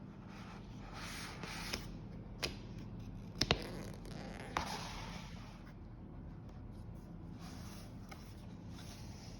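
Album packaging being handled and opened by hand: bursts of rustling and scraping with a few sharp clicks, the loudest two close together about three and a half seconds in.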